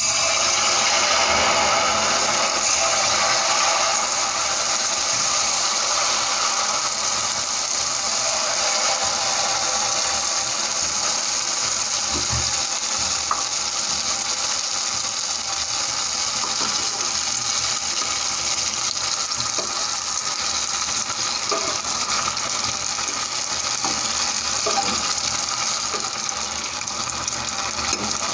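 Pua fritters of maida-and-buttermilk batter deep-frying in hot oil: a loud, steady sizzle that starts suddenly as the batter goes in and eases slightly over time, with a few faint clicks.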